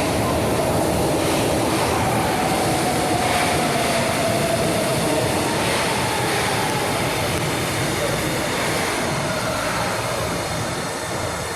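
Metro train running through the station with a loud, steady rumble, while an electric whine slowly falls in pitch, as when the train slows.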